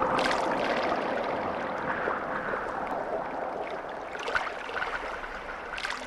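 Water running and splashing: an even rushing noise with a few short splashes, the loudest about a second in.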